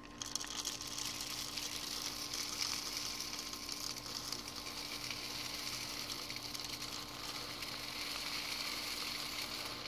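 Dry chicken feed poured steadily from a plastic tub through a wide-mouth funnel into a PVC pipe feeder: a continuous, even hiss of grains sliding and trickling that starts abruptly as the pour begins.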